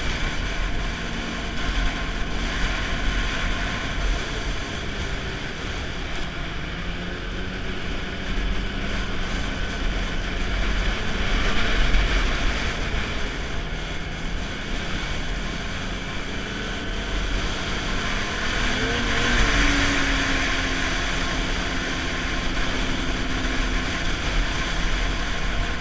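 Snowmobile engine running steadily while riding, with wind buffeting the microphone; the engine pitch wavers up and down briefly about two-thirds of the way through.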